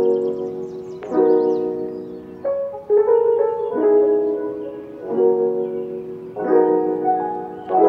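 Background music: keyboard chords in an easy-going vlog-style track, with a new chord struck about every second and a quarter.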